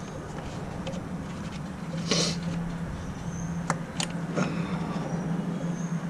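Hand work under the hood while the ignition coils are unplugged and pulled: a short scraping rattle about two seconds in, then a few sharp clicks, over a steady low hum.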